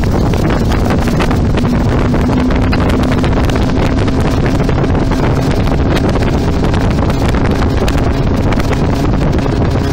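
Pioner plastic boat planing under engine power: a steady motor drone under heavy wind noise on the microphone and the rush of water along the hull.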